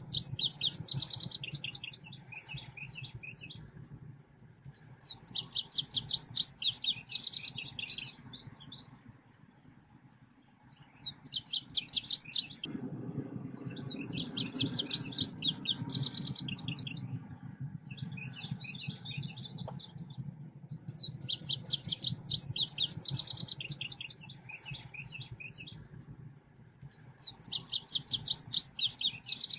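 Selendang biru bird song: phrases of rapid, high chirps about two seconds long, repeating every five or six seconds. It is a lure (pikat) and training (masteran) call for songbirds. A low steady hum runs underneath and gets louder about halfway through.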